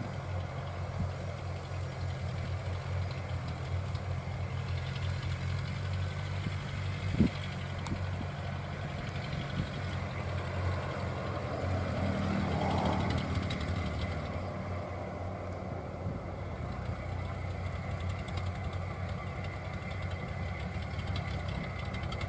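Engine of a homemade crawler rice-hauling tractor running steadily as the machine moves off, growing louder for a couple of seconds around the middle. One sharp knock about seven seconds in.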